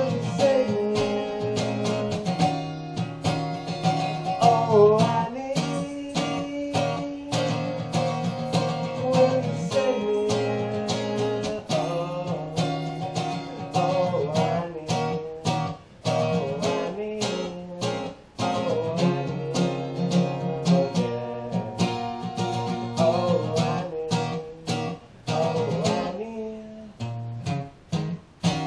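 Acoustic guitar strummed in a steady rhythm, chords ringing between the strokes, in an instrumental passage between sung verses. The strumming briefly drops away several times in the second half.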